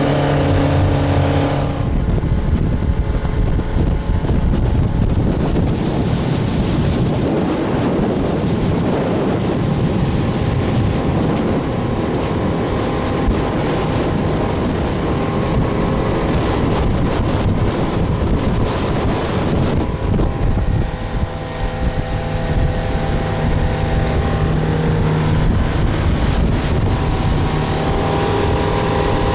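Boat engine running steadily. For most of the middle its tone is buried under a loud rush of wind and water, and it comes through clearly again near the end.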